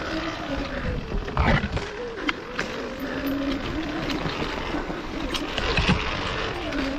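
Off-road motorcycle engine running under load, its pitch rising and falling as the throttle changes over rough ground, with a few sharp knocks from the bike hitting rocks or ruts.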